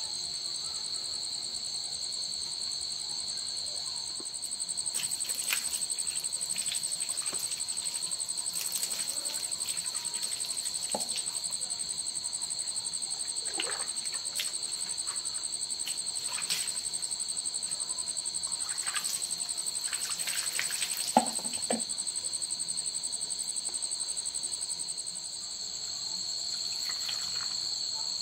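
Steady high-pitched chorus of insects, crickets or similar, that gets louder about four seconds in. Scattered clicks and knocks sound over it, the sharpest about three quarters of the way through.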